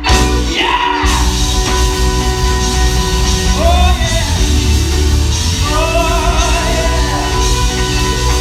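Live gospel quartet and band performing: held chords and a steady bass line under a singer's sliding, drawn-out vocal cries, heard about a second in, again near four seconds and from about six seconds on.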